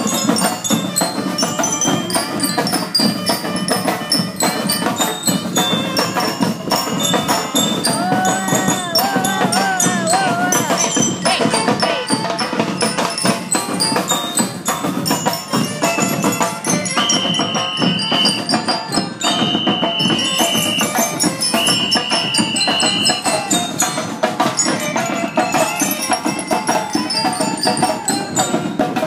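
Parade marching band playing: steady drumming with bells carrying the tune, and three long, high steady notes about two-thirds of the way through.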